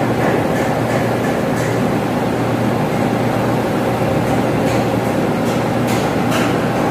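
Steady drone of running ventilation machinery with a constant hum, and a few light clicks in the second half.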